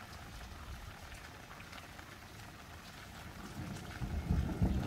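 Steady rain falling, with scattered drops ticking close by. A low rumble swells near the end.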